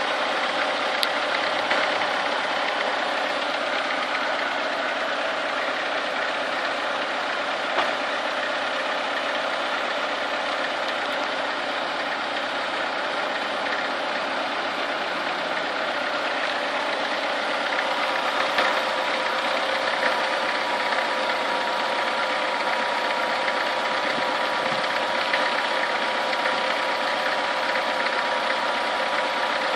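Chevrolet Niva four-cylinder petrol engine idling steadily while warming up, with a knock whose cause the owner cannot identify. A thin steady whine joins in about halfway through.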